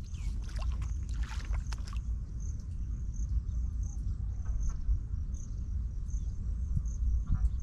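Wind buffeting the microphone as a steady low rumble, with a few rustling steps in the first two seconds. From about two seconds in, an insect chirps faintly in a high, even pulse about twice a second.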